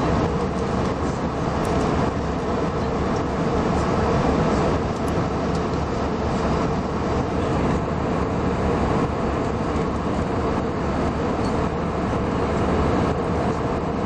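Steady jet airliner cabin noise heard from inside at a window seat: the engines and rushing airflow make a constant, even roar with a deep low end.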